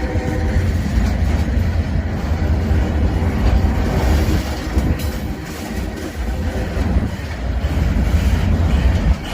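Train rolling past close by, its wheels clacking over the rail joints with a heavy steady rumble.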